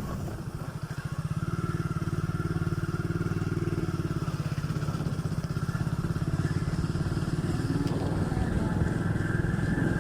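Motorcycle engine running steadily under way, with an even firing beat.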